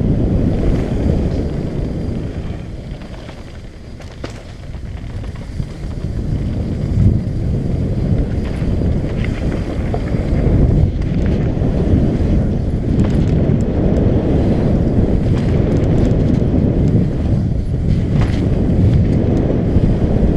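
Wind buffeting the microphone of a camera on a mountain biker riding downhill, a steady low rumble that eases for a couple of seconds early in the run and builds again as speed picks up, with scattered clicks and rattles from the bike on the trail.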